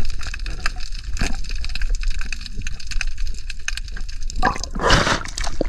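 Underwater sound: a dense crackle of small clicks over a low steady rumble of water. About four and a half seconds in comes a louder, brief rush of splashing water.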